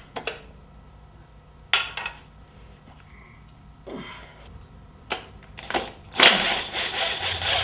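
Metal tools knocking and clinking on an engine as its front accessories are taken off, a handful of separate knocks, then about six seconds in a loud burst of power-tool noise running a fastener.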